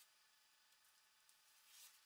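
Blue painter's tape being peeled off the edge of a wooden panel, faint, with a brief louder rip near the end.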